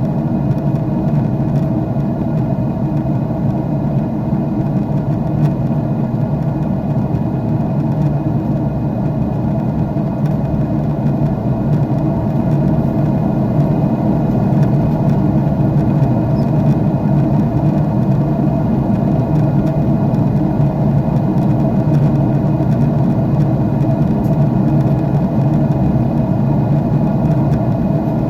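Steady, unchanging noise of a jet airliner's engines and airflow heard inside the passenger cabin, deep and rumbling, with faint steady hums.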